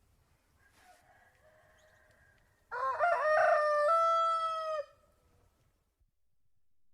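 Rooster crowing: one loud, drawn-out crow about two seconds long that starts about three seconds in and ends on a held note that drops at the close, after a fainter call from about a second in.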